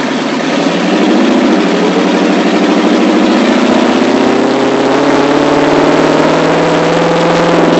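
Monster truck engine running under load as the truck pulls away, getting louder about a second in and rising slowly in pitch for several seconds before holding steady.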